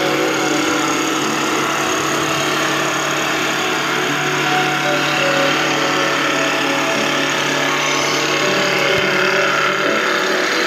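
Wood-rounding (dowel-making) machine running, its spinning cutter head shaving a square wooden stick into a round rod: a steady mechanical hum with a dense hiss of cutting.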